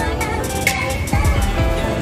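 Background music with a steady beat: quick, even ticks over deep, falling bass notes.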